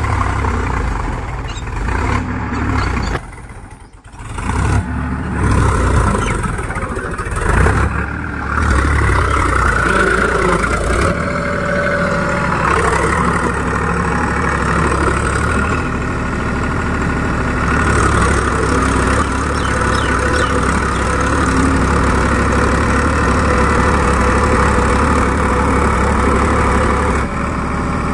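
Farm tractor's diesel engine running steadily as it hauls a trailer loaded with soil through soft, muddy ground. The sound drops away briefly about four seconds in, then carries on evenly.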